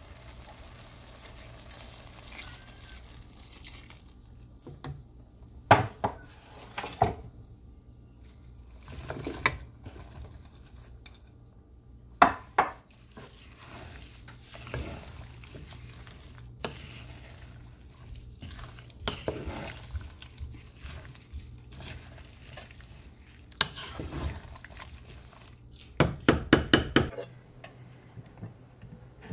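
Wooden spoon stirring and scraping chopped vegetables in a non-stick frying pan, with scattered knocks of the spoon against the pan, over a steady low hum. Near the end comes a quick run of rapid taps.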